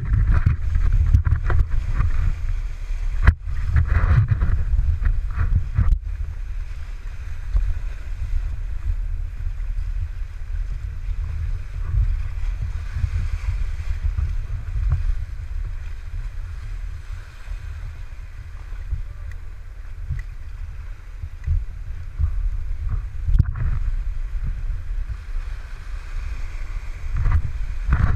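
Rushing river water around a whitewater raft, with wind buffeting the microphone as a heavy low rumble and a few sharp knocks.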